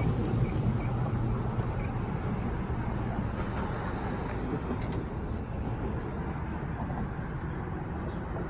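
A motor vehicle running, a steady engine hum mixed with noise, slowly getting quieter.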